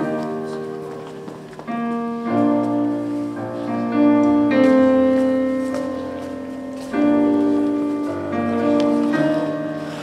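Yamaha digital piano playing a slow run of held chords, a new chord struck every second or two.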